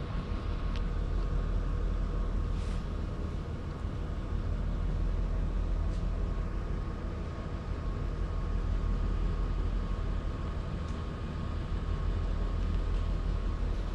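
Steady low hum and rumble with faint steady higher tones and a few faint ticks.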